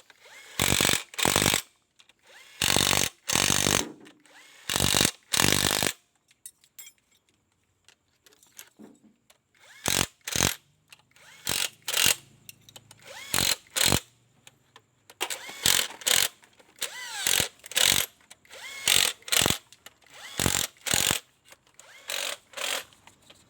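Repeated short bursts of a workshop tool, each under half a second, coming in irregular clusters, with a pause of a few seconds about six seconds in.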